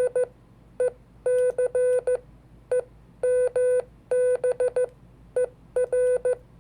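Morse code (CW) tone at one steady pitch, keyed in dits and dahs with gaps between the letters, spelling out the month DECEMBER.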